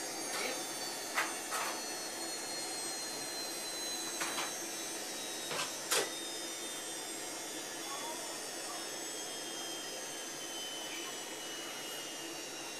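Zanussi washer-dryer drum spinning down after a 1200 rpm spin: a steady whirr with a faint high whine slowly falling in pitch as the drum slows. A few short knocks come through, the loudest about six seconds in.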